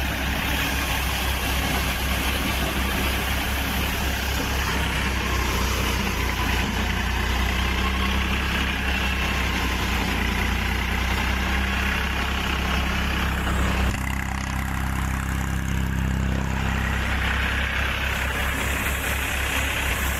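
Tractor diesel engine running steadily while it drives a multi-crop threshing machine, with the thresher's drum and blower adding a constant rushing hiss over the engine's low hum. The sound shifts for a few seconds around two-thirds of the way through.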